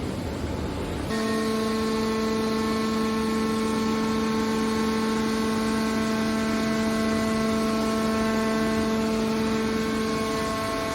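Hydraulic metal baler running. About a second in, a steady hum starts over the machine's running noise and holds at one pitch, typical of the hydraulic pump working under load.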